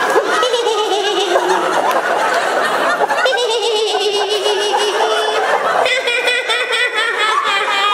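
Audience laughing continuously.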